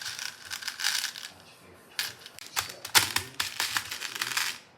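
Beads clicking and rattling in quick irregular bursts, with a sharper clack about three seconds in; the sound stops just before the end.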